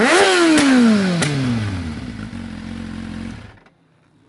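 Kawasaki Z750's inline-four engine through a MIVV GP silencer with its dB killer fitted, blipped once from idle. The revs rise quickly at the start, then the note falls back to idle over about two seconds, with two sharp pops from the exhaust on the overrun. The engine sound stops suddenly about three and a half seconds in.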